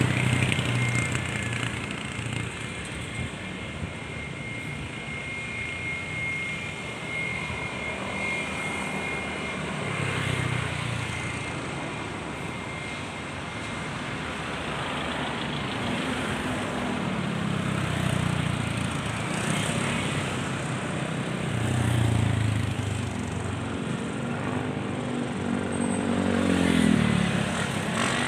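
Aircraft engine noise: a steady rushing sound with a thin high whine through the first third. It grows louder in the later part, with wavering low tones near the end.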